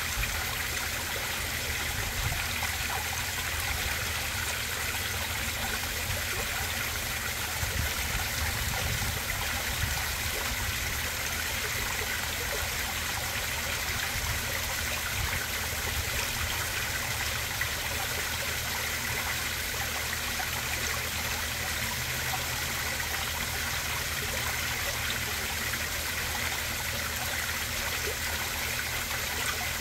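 Small rock waterfall splashing steadily into a garden koi pond.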